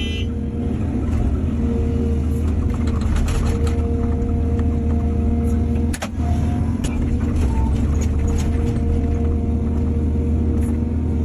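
Excavator diesel engine running steadily with a low rumble and a steady hydraulic whine, with scattered clanks and a sharp knock about six seconds in.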